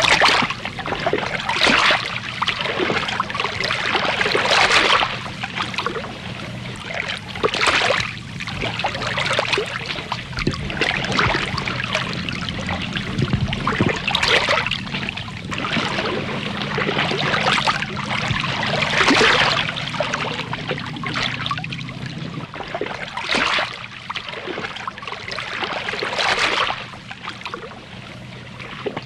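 Water splashing and lapping in irregular surges every two to three seconds over a continuous wash.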